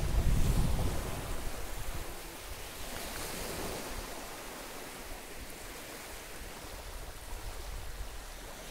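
Small waves lapping and washing up a sandy beach in a steady wash, with a swell about three seconds in. A low rumble of wind on the microphone in the first second is the loudest part.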